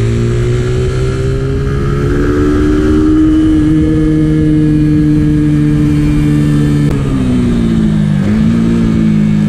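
Macbor Johnny Be Good 125 cc single-cylinder engine running while riding, heard from onboard over wind rush. The engine note creeps up slightly in the first few seconds and holds steady, then the revs fall from about seven seconds in and settle at a lower steady note.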